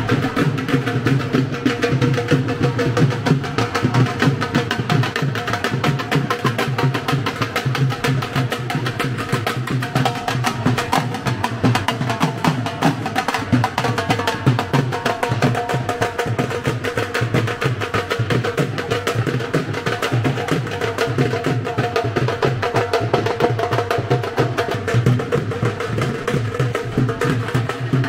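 Dhol drums played in a fast, steady rhythm: rapid sharp clicks from the thin stick over deeper drum beats, running without a break.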